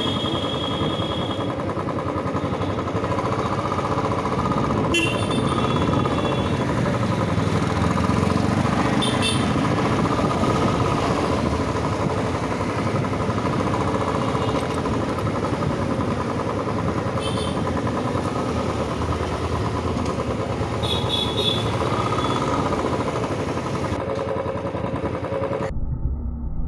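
Royal Enfield motorcycle running steadily while being ridden. A few short high-pitched tones sound over the engine, and near the end the sound turns duller.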